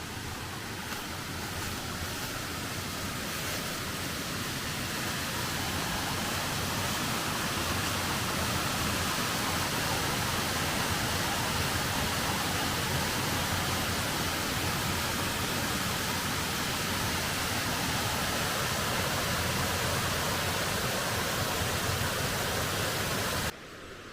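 Steady rushing of a waterfall, growing louder over the first few seconds, then cutting off suddenly near the end.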